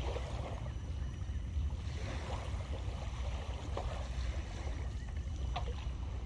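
Wind buffeting the microphone: a steady low rumble, with a few faint short ticks in the middle and near the end.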